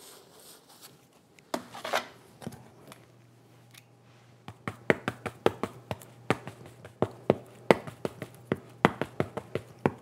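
A 2-inch paintbrush tapped rapidly and repeatedly against a palette, several light taps a second, to work purple oil paint evenly into the bristles. The tapping starts about halfway through, after a couple of isolated knocks.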